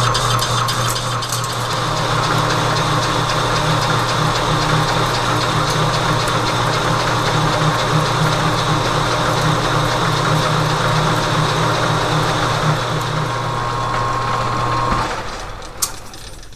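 Metal lathe running under a facing cut on a large 4140 steel workpiece: a steady mechanical hum with a higher steady tone. Near the end the lathe is switched off and winds down, with a single click.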